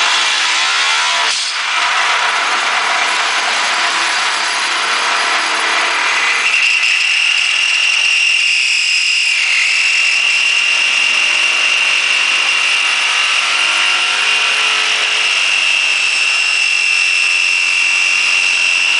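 Homemade friction welder running: a motor-spun metal rod grinding against a stationary rod in steady, loud friction. About six seconds in a high-pitched squeal sets in and holds as the joint heats to red-hot.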